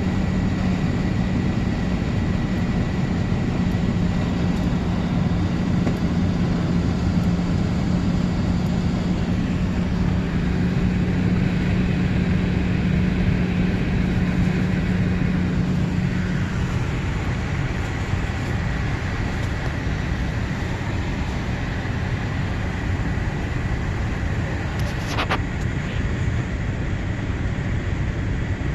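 Airbus A380 engines running steadily at low power before takeoff, heard as a constant rumble and rush inside the cabin. A low hum drops away about 16 seconds in, and a faint high whine holds throughout.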